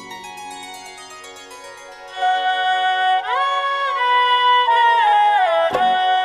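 Instrumental interlude in a Hindi devotional song. After about two seconds of soft sustained backing, a melody line with sliding notes comes in, and a single percussion stroke lands near the end.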